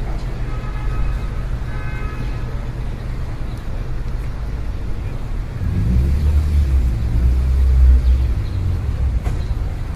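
City street traffic ambience: a steady low rumble of road traffic, swelling about six seconds in as a heavier vehicle passes close and then easing off.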